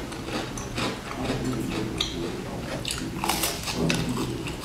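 A crisp seeded biscuit being chewed close to the microphone, with a run of short, crunchy crackles throughout.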